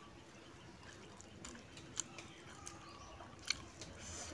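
Close-up chewing of a mouthful of rice eaten by hand, with a few sharp wet mouth clicks; the two loudest come about two and three and a half seconds in.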